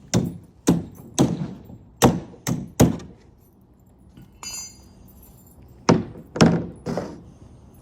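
Series of sharp wooden knocks on shipping-crate boards. There are six in about three seconds, a short scrape, then three more. This fits hammer blows bending over nails.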